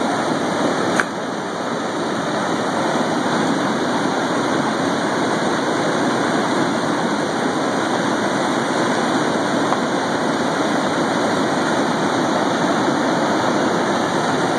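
Steady rush of river water pouring over a dam's spillway, with a brief sharp click about a second in.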